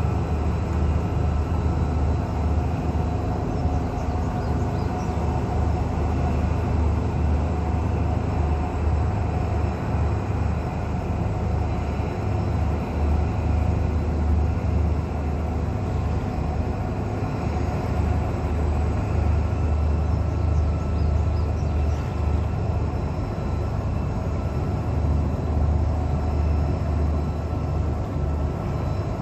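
An engine running steadily, a continuous low rumble with no change.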